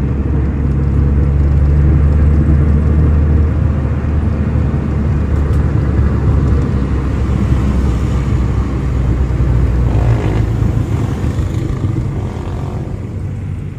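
Engine and road noise heard inside the cabin of a 1993 Toyota Starlet EP81 hatchback on the move: a steady low engine hum under tyre and road noise, easing off near the end.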